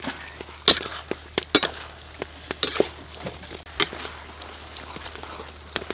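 A metal spoon scraping and clacking against a wok as beef slices are stir-fried: about a dozen sharp, irregular knocks over a steady frying sizzle.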